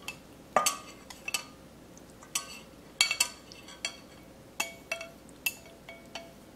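Chopsticks and a serving bowl clinking against a stainless steel mixing bowl as squid is scraped in for a salad. There are about a dozen irregular sharp clinks, each with a short metallic ring.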